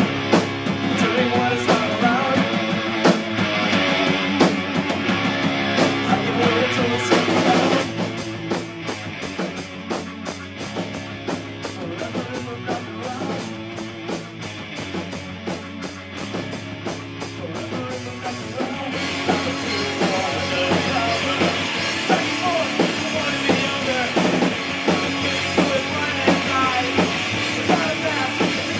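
Rock band playing with drum kit and electric guitar. About a quarter of the way in the band drops back to a sparser passage driven by steady, fast cymbal ticks, and the full band comes back in about two-thirds of the way through.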